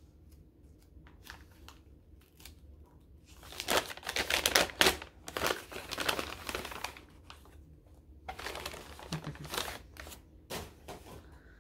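Wrapping on a small gift package being crinkled and torn open by hand, with scattered light rustles at first and two longer, louder spells of crinkling after a few seconds and again near the end.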